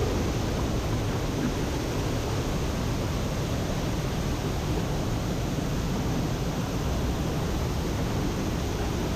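Large waterfall rushing: a steady, unbroken wash of falling water.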